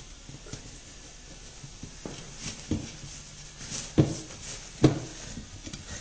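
A tyre being worked off a steel wheel rim by hand: scraping and rubbing of rubber against metal, broken by a few dull knocks, the loudest about four and five seconds in.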